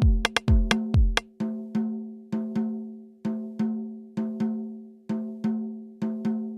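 Electronic music: sharp, wood-block-like percussion hits at an even pulse of about two to three a second over a sustained droning chord. A deep kick drum plays under the first second or so, then drops out, leaving only the clicks and the drone.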